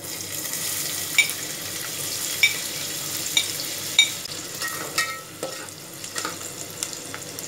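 Chopped onions dropped into hot oil, sizzling with a steady hiss that starts suddenly as they go in. A metal spoon clinks sharply several times as the onions are scraped off the plate, then stirs them in the pot.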